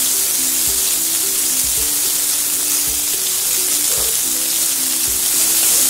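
Chopped red onion and cumin seeds frying in hot oil in a kadhai, with a steady, even sizzle. Background music with sustained notes plays under it.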